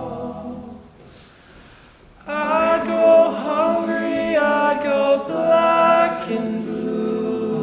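Male a cappella group singing in close harmony: a held chord dies away in the first second, then after a short pause the voices come back in together a little over two seconds in and sing on in full chords.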